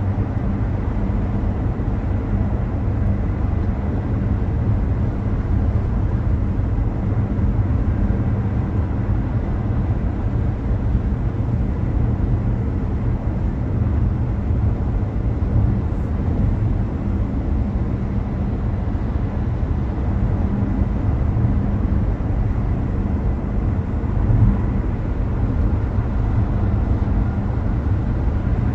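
A car driving along city streets: a steady low rumble of engine and tyre noise on the road, unbroken throughout.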